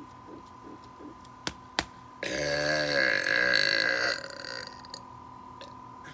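A man's deliberate burp, about two seconds long, its pitch sliding down and wobbling, forced out after swallowing air in a run of about twenty gulps. The last few faint rhythmic gulps and two sharp clicks come just before it.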